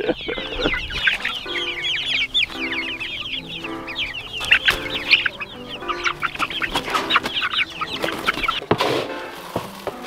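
A flock of young Pekin ducks peeping in a busy, continuous high chatter, over soft background music.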